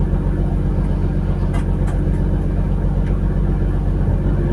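A fishing trawler's diesel engine running steadily under way, a low rumble with a rapid, even pulse.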